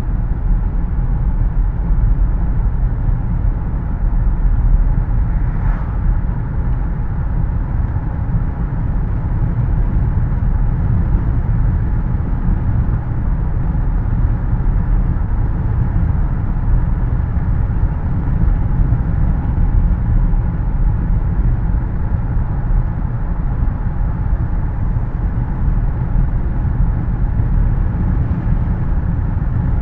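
Steady road noise inside a moving car's cabin: a low tyre and engine rumble under the even hiss of the air conditioning.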